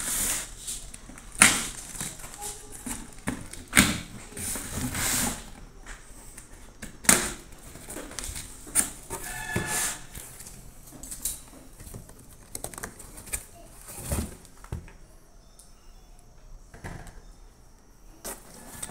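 Cardboard shipping box being cut open and unpacked: tearing and rustling of cardboard and packing tape, broken by several sharp knocks as the flaps and contents are handled. It grows quieter in the second half.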